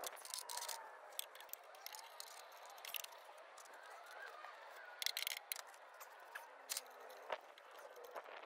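Faint clicks and scrapes of a hand wrench on metal as bolts are worked loose under the vehicle. A short run of quick clicks comes about five seconds in.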